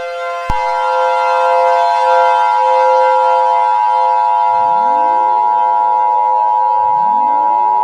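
Emergency Alert System attention signal: a steady two-tone alert starting about half a second in, following the last burst of the digital header tones. Under it runs a steady lower tone, and from a little past halfway siren wail sweeps rise in pitch twice.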